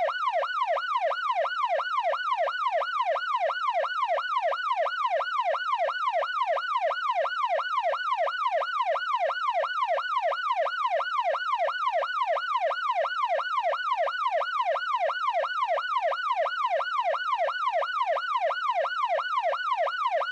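Police car siren sounding in its fast yelp pattern: a pitched tone sweeping up and down about twice a second, steady and unbroken.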